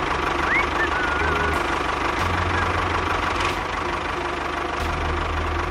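Engine idling with a steady low, pulsing hum. A few bird chirps come about half a second in, and several faint clicks sound now and then.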